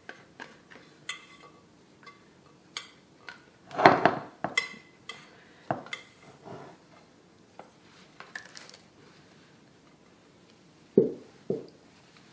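A glass mixing bowl knocking and clinking against a wooden cutting board as risen yeast dough is tipped out of it, with one louder ringing clunk about four seconds in. Near the end come two dull thumps as the dough lands and is pressed on the board.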